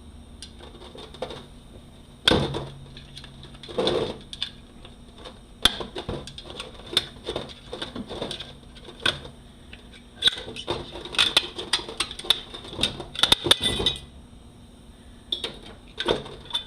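Automatic transmission clutch-pack parts being handled on a workbench: scattered metallic clinks, clatters and knocks as steel plates, the cushion plate and pistons are picked up and set down. The clinks come thickest about ten to fourteen seconds in.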